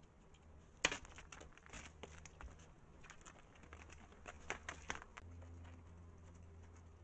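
Desert bighorn sheep hooves clicking and scuffing on rock and gravel as a ram steps down to a small pool, a string of irregular faint clicks, the first about a second in the loudest, over the steady low hum of the trail camera.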